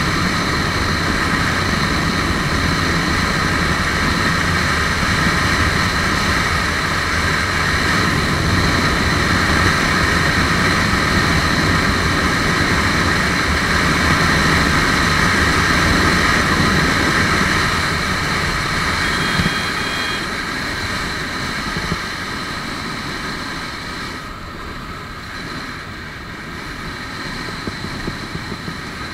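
Lifan KPR150 motorcycle engine running hard at high speed, under a heavy steady rush of wind over the camera. The sound eases off somewhat about two-thirds of the way through.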